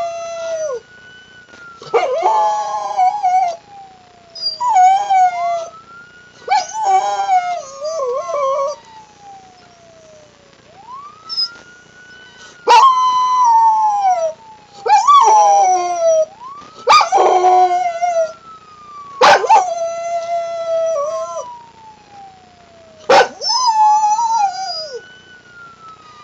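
A dog howls along with a wailing ambulance siren, in about ten separate howls of a second or two each. The siren rises quickly and then falls slowly, over and over, about every five to six seconds.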